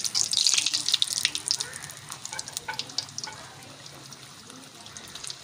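Samosas deep-frying in hot ghee in an iron kadai: a crackling sizzle with many sharp pops, loudest in the first second and a half, then settling to a quieter sizzle.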